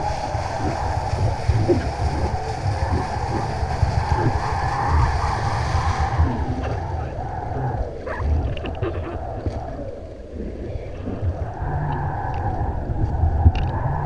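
Wind rushing and buffeting over a camera mounted on the kite lines, with a low rumble and a wavering hum. The high hiss drops away about six seconds in, and a few short splashes come from the water below.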